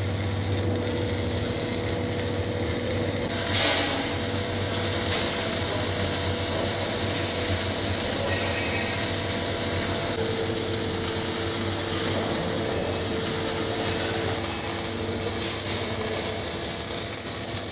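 MIG/MAG welding arc crackling steadily as the wire feeds into the joint, with a low hum underneath.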